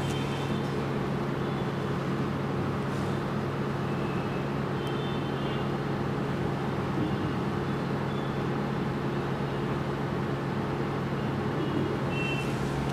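Hot-air SMD rework station blowing steadily with a constant low hum while it heats a board-to-board connector to desolder it from a phone display flex cable.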